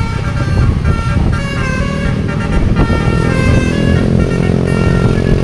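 A bus's telolet basuri multi-trumpet horn playing a tune: a quick run of short notes, then a long held chord from a little past halfway, over a constant low engine and road rumble.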